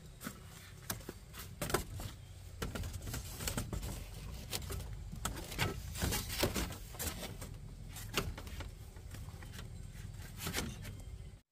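Split-bamboo panel knocking and rattling against a bamboo frame as it is handled and fitted into place: a string of irregular clicks and knocks.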